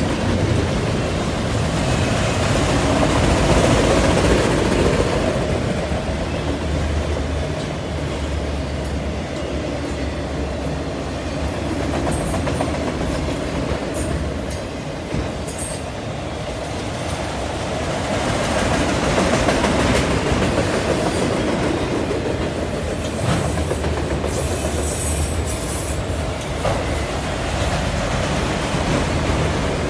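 Freight train cars (intermodal well cars, then autoracks) rolling past: a continuous rumble of steel wheels on rail with clickety-clack over the joints. Brief high-pitched wheel squeals come about halfway through and again a few seconds before the end.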